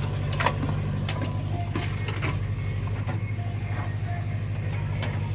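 Heavy diesel engine running steadily, with several sharp metallic clanks and knocks scattered over it, the first about half a second in.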